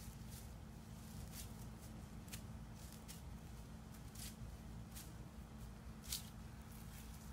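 A long-handled weed cutter swung through grass and brush, giving a short sharp swish roughly once a second, the loudest about six seconds in.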